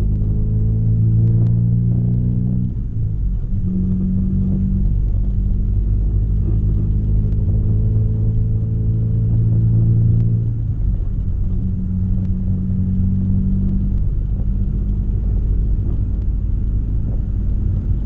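Drone of a Honda D16A6 four-cylinder through a straight-pipe exhaust with a 4-2-1 header and no catalytic converter or resonator, heard inside the car's cabin. The note climbs slowly under light acceleration, drops suddenly about three seconds in and again about ten and a half seconds in as the gears are changed, then settles to a steady cruise.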